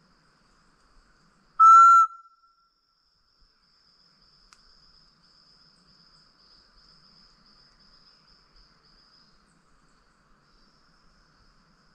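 A tinamou call whistle (pio pé de cabra) blown once about two seconds in: a single short, clear whistled note imitating the call of a solitary tinamou (macuco). Faint steady insect trilling continues underneath.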